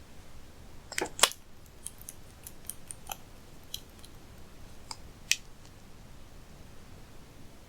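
Sharp clicks and small crackles from hands working slime and makeup, loudest as a double click about a second in and another single click a little past five seconds.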